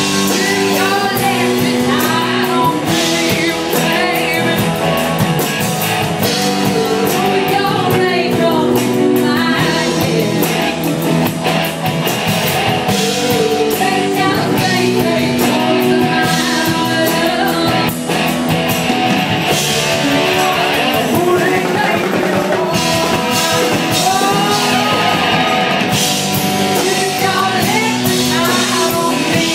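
Live rock band playing a song: electric guitar, bass and drum kit under a singing lead vocal.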